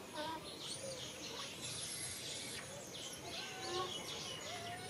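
Outdoor ambience: birds chirping over a steady background hiss, with scattered short calls.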